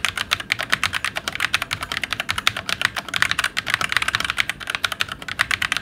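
Fast, continuous typing on a Fantech Atom mechanical gaming keyboard: a rapid, unbroken run of key clicks during a typing test.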